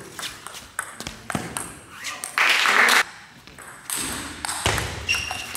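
A fast table tennis rally: the plastic ball clicks sharply off the rubber bats and the table several times a second. About two and a half seconds in, a loud cheer breaks out as the point ends.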